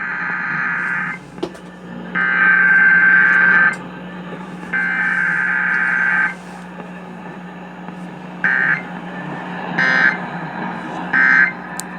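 Emergency Alert System SAME data bursts received on AM radio: three buzzing header bursts of about a second and a half each, a second apart, then three short end-of-message bursts. They mark the start and end of a required weekly test.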